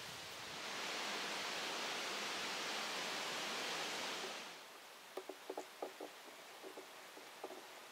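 Woodland ambience: a steady rushing hiss that starts about half a second in and stops suddenly about four and a half seconds in. A quieter background follows, with scattered light ticks and taps.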